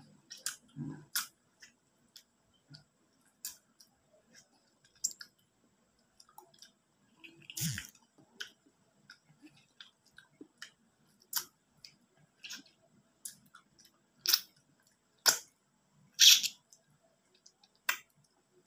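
Close-up mouth sounds of eating ripe mango flesh off the slice: irregular wet smacks and clicks, one every second or so, with louder ones near the middle and towards the end.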